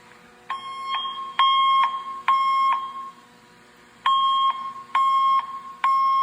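Fire alarm speaker sounding the evacuation alert tone that opens a Wheelock voice message: a temporal-three pattern of three half-second beeps, a pause, then three more.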